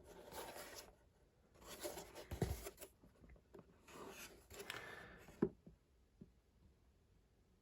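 Three stretches of soft scraping, rubbing handling noise, ending in a sharp click about five and a half seconds in.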